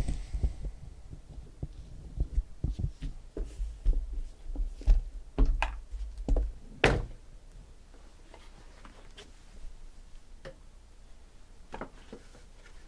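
Sealed cardboard trading-card boxes being handled and set down on a table: a run of knocks and dull thumps during the first seven seconds, then only a few light taps.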